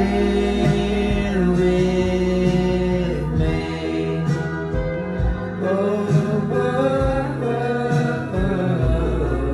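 Pop music with a singing voice holding long, gliding notes and no clear words.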